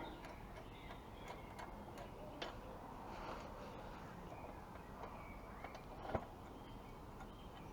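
Faint, irregular metallic clicks and ticks of a spanner working the chain adjuster bolts on a motorcycle swing arm as they are loosened, with one sharper click about six seconds in.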